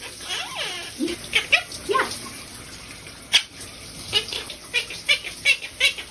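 Parrot calling: a few sliding, rising-and-falling calls in the first two seconds, a sharp click about three seconds in, then a run of short high chirps, two or three a second.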